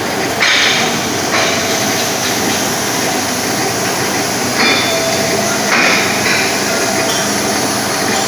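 Metal lathe cutting a railway bogie part: steady machine noise with four short bursts of harsher, higher scraping noise as the tool bites.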